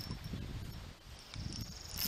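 Faint outdoor background: an insect's steady high-pitched drone that fades and comes back louder near the end, over a low uneven rumble on the microphone.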